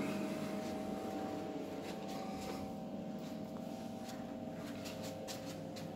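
Footsteps climbing an indoor staircase: a few light, irregular clicks and taps over a steady low hum.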